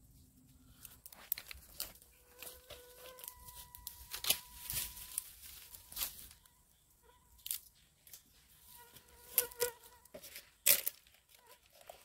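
Dry leaves, twigs and brush crunching and snapping in short, irregular cracks, with a faint steady hum coming and going twice.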